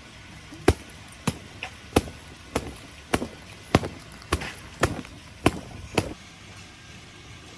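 About ten sharp, evenly spaced knocks, a little under two a second, from something being struck over and over; they stop about six seconds in.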